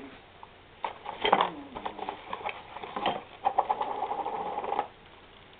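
A few sharp knocks and clicks, then a rapid, evenly repeating mechanical rattle lasting about a second and a half before it stops.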